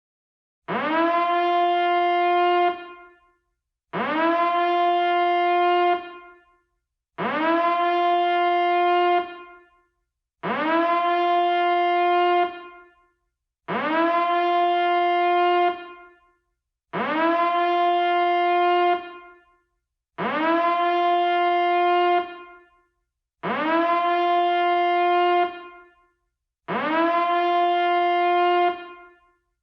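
Alarm sounding nine long blasts, each swooping up quickly at the start to a steady low tone and lasting about two seconds, repeating about every three seconds.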